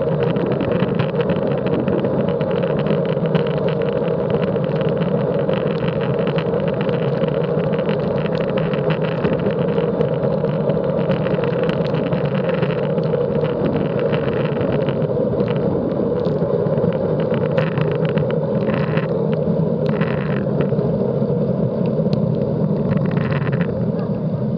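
Steady rush of wind and road noise on a bike-mounted Garmin VIRB action camera riding at about 22 mph, thinning out in the last several seconds as the bike slows.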